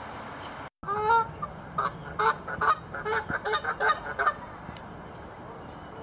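Canada geese honking loudly: a rapid run of a dozen or so honks, about four a second, that starts about a second in and stops about three seconds later.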